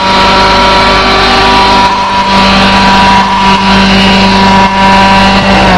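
A motor running loud and steady at one pitch, starting to wind down with falling pitch at the very end.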